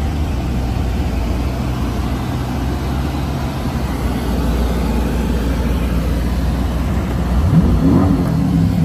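C8 Corvette V8 engines running at low speed and idle, heard from inside a Corvette's cabin. About seven and a half seconds in, an engine revs up quickly and holds a little higher.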